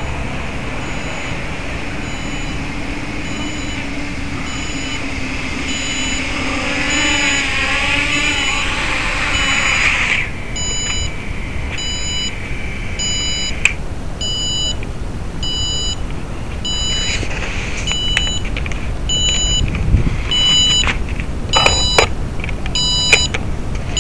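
Mini brushless quadcopter's motors and propellers whining, the pitch wavering, then cutting out about ten seconds in as the drone lands. A steady electronic beep repeats about one and a half times a second throughout, with a few sharp clicks of handling near the end.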